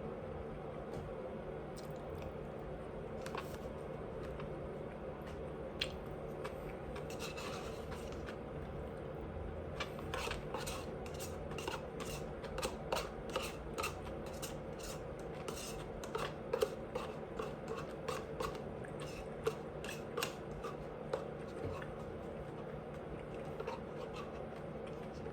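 Close-miked chewing: a run of wet mouth clicks and smacks, a few a second, from about ten seconds in for roughly ten seconds, with softer ones before and after, over a steady low hum.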